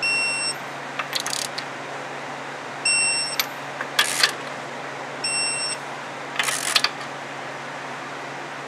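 Torque wrench beeping as each wheel lug nut reaches its set torque of 175 N·m: three half-second beeps about two and a half seconds apart. Between the beeps are short ratcheting noises as the wrench is worked onto the next nut.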